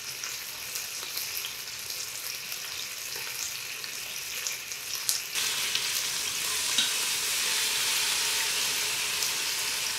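Chuck roast searing in hot oil in an Instant Pot's inner pot on the sauté setting: a steady sizzle that gets louder about halfway through, with a couple of light clicks from metal tongs.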